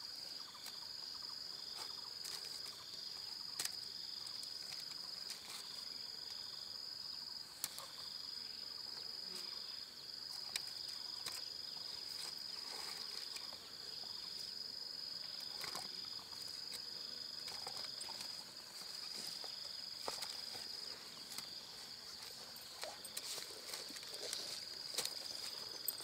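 Insects calling: a steady high-pitched trill broken by short gaps every second or two, over a second, lower call pulsing on and off at a regular pace. Scattered faint clicks and rustles sound now and then.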